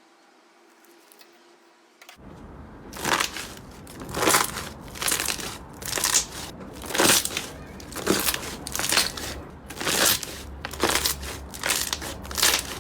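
Hands squeezing and kneading slime, a run of short noisy bursts roughly once a second, starting about two seconds in after a faint hum.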